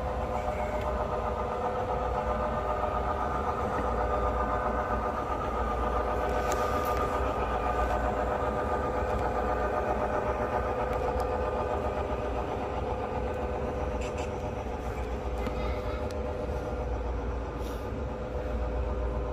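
Model Southern Pacific diesel locomotives running slowly along layout track, a steady droning hum with a few faint clicks.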